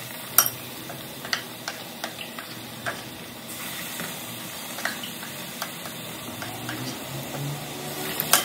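Gram-flour-battered raw banana balls deep-frying in hot oil: a steady sizzle with sharp clicks about once a second. The loudest clicks come about half a second in and just before the end.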